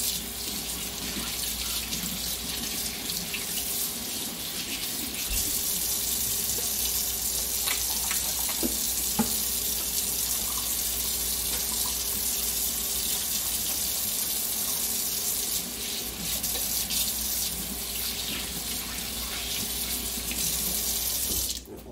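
Kitchen sink faucet running steadily, the stream splashing into the sink as hands are washed under it, with a few faint knocks; the water shuts off sharply near the end.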